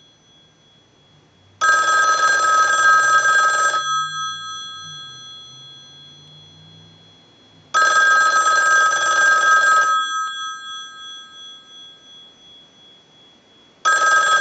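Western Electric 500 rotary desk telephone's two-gong bell ringer ringing on a test ring cycle: two-second rings about six seconds apart, the gongs ringing on and fading after each ring. A third ring starts near the end.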